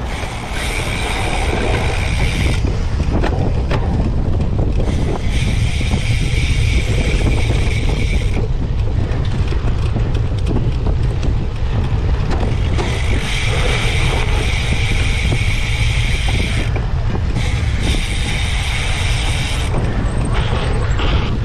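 Cyclocross bike ridden hard over rough ground, with a steady low rumble of wind and terrain on the camera. The rear freehub's ratchet buzzes in several stretches of a few seconds each, as the rider coasts between pedalling.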